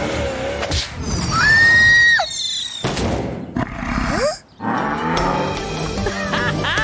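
Cartoon background music with action sound effects, including one long high-pitched cry held for about a second.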